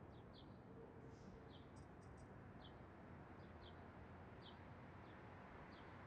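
Faint steady low hum of city ambience with a small bird chirping repeatedly: short, high, downward-sliding chirps about every half second to a second, with a quick run of higher ticks about two seconds in.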